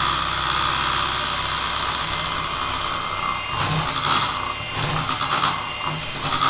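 Electric hand mixer running steadily, its beaters whisking a runny cake batter of eggs, sugar and oil in a glass bowl. From about halfway, irregular louder rattling bursts break into the steady motor whine.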